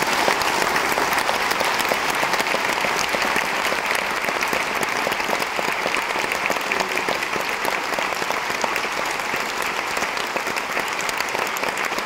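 A large audience applauding steadily, a dense patter of many hands clapping that eases off slightly towards the end.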